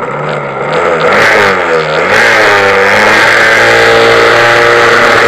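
West Bend two-stroke kart engine, just caught. Its revs swing down and back up over the first two seconds, then it runs on steady and loud.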